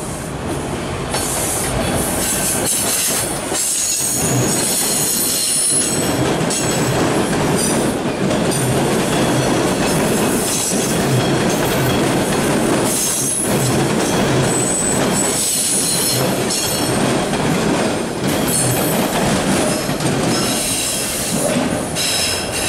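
TTC T-1 subway train rolling past on surface track over a steady rumble. Its steel wheels squeal in high tones again and again, with clicking as the wheels cross rail joints.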